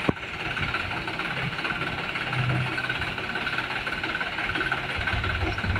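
Loaded light truck's engine running steadily at low revs as the truck crawls over a rutted mud road, swelling slightly a couple of times.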